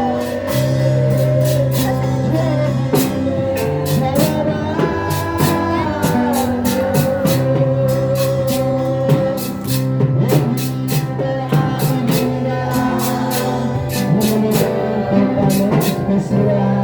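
Band music with drum kit, bass and guitar, a melody line over a steady beat, with some singing.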